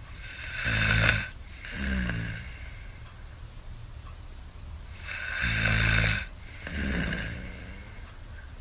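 A person snoring: two snores about four and a half seconds apart, each a loud stretch of about a second followed by a shorter, quieter sound that falls in pitch.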